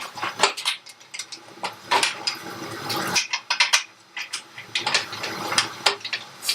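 Irregular metal clinks, taps and scrapes as a Harley-Davidson rear fender and its bolt are worked into place against the frame by feel.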